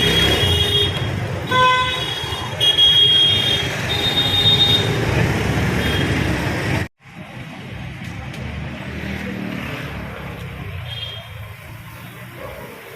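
Busy road traffic with several short vehicle horn toots in the first half. The sound cuts out abruptly for a moment about seven seconds in, and then the traffic noise goes on more quietly.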